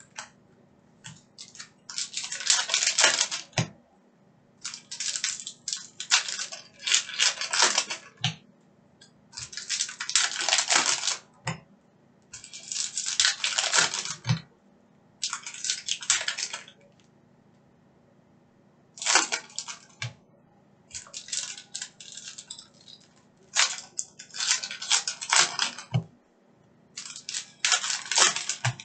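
Foil trading-card pack wrappers being torn open and crinkled by hand, in repeated bursts of rustling a second or two long with short pauses between.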